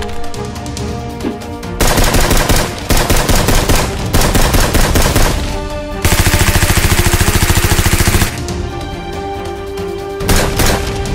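Nerf blasters firing in rapid-fire bursts: several short bursts, then a longer even burst of about two seconds, and a brief one near the end, over background music.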